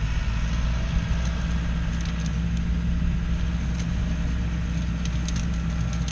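Diesel engine of heavy earthmoving equipment running steadily at a low drone. Sharp clicks and snaps come in over it in the last couple of seconds.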